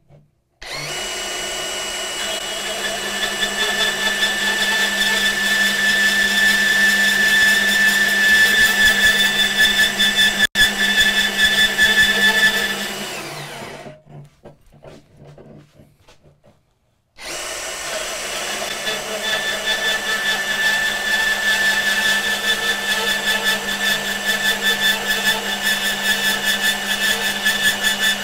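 DeWalt 20V MAX DCS374 cordless deep-cut band saw cutting through 3/8-inch steel plate, its motor and blade running with a steady tone. It winds down about thirteen seconds in, stops for a few seconds, then starts again and carries on cutting.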